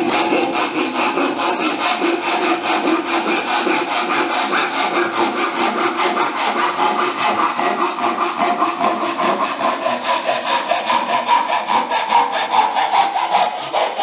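Japanese-style pull saw cutting through a softwood board by hand, in even, rapid strokes at roughly four a second; the rasp of the cut rises in pitch toward the end.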